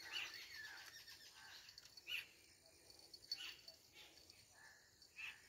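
Quiet outdoor ambience: a few faint, short calls about a second apart over a thin, steady high whine.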